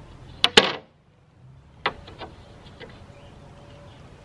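Wooden lid panel of a console record-player cabinet knocking against the cabinet as it is lifted and handled: two sharp knocks about half a second in, then a lighter knock near two seconds and a few faint clicks.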